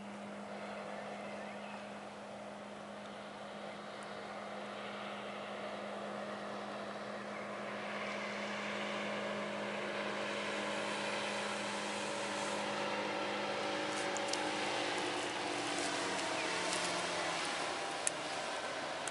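Outboard motor of a small speeding motorboat running at high speed with the hiss of spray and wake, growing louder as the boat approaches. Its pitch drops as it passes near the end, and there is a sharp click near the end.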